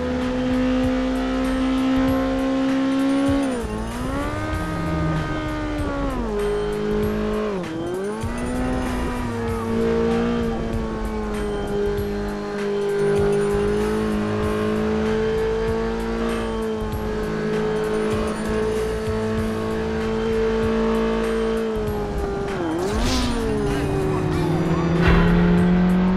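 KTM 690 Duke's single-cylinder engine running on the road at steady revs. The revs dip and climb back three times as the rider shifts or rolls off the throttle.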